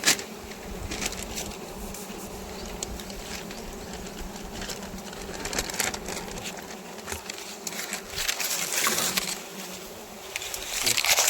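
A swarm of honeybees buzzing steadily around a wild hive that is being harvested. Bursts of rustling and crackling come about two-thirds of the way through and again near the end.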